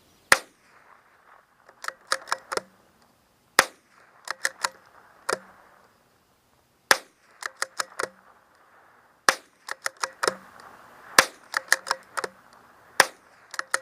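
Six sharp shots from a bolt-action .22 rifle, spaced two to three seconds apart. Between shots comes a quick run of four or five lighter clicks as the bolt is cycled.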